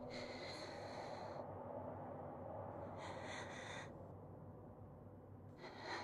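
A woman breathing slowly and faintly: three breaths, each about a second long and a couple of seconds apart, over a low steady background hum.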